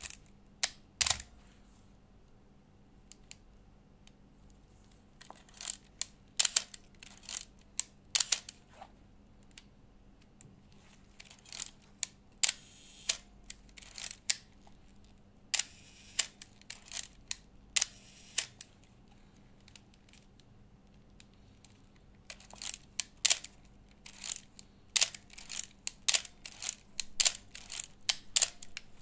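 Olympus OM-1 35 mm film SLR and its Zuiko lens being worked by hand: a series of sharp mechanical clicks, singly and in quick runs, with a few short ratcheting rasps. The clicks come thickest in the last several seconds.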